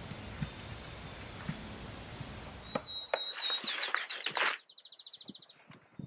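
Songbirds singing in the woods: a run of short, high chirps, then about three seconds in a different song that ends in a fast trill. A loud rustling burst comes in the middle.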